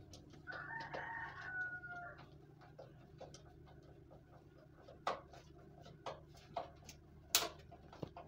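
A single long pitched call or squeal of about two seconds near the start, then scattered sharp clicks and knocks of a screwdriver working screws into the plastic fan frame, the sharpest about seven seconds in.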